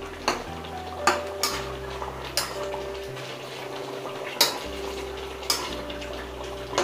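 Slotted metal spatula stirring koftas through watery gravy in a metal kadhai, knocking against the pan in sharp clacks about once a second, about seven in all.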